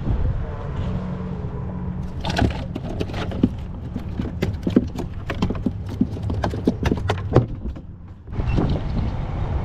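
A quick irregular run of sharp knocks and taps, several a second, starting about two seconds in and stopping near the end, over a steady low rumble.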